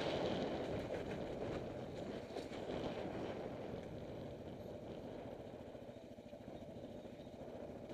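Motorcycle engine running at low speed on a rough dirt trail. It eases off slightly past the middle, then picks up again near the end.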